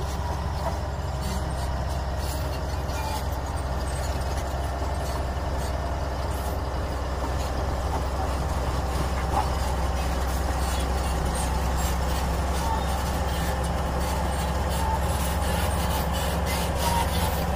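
Steady low engine rumble that holds the same pitch and level throughout.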